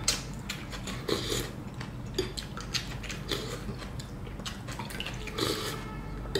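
Close-up eating sounds from bowls of pho noodle soup: soft chewing and slurping, with scattered clicks of spoons and chopsticks against ceramic bowls.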